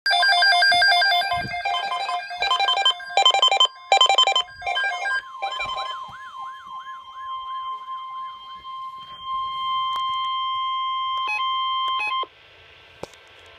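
Rapid electronic beeps in changing pitches for about five seconds. Then a warbling, siren-like sweep over a steady tone of about 1 kHz: the NOAA Weather Radio warning alarm tone. The tone holds alone and cuts off about twelve seconds in, leaving faint receiver hiss.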